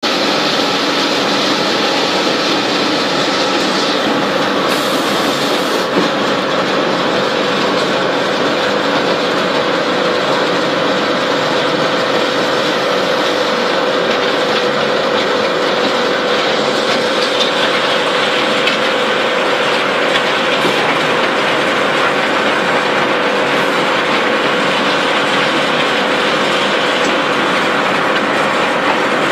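Concrete batching plant machinery running: a steady, loud mechanical rattle and clatter with a constant tone running through it.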